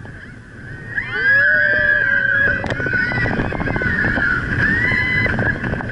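Steel roller coaster train running down the track: a rumble of wheels with rapid knocks and rattles, growing louder about a second in as it picks up speed, under high wavering cries from the riders.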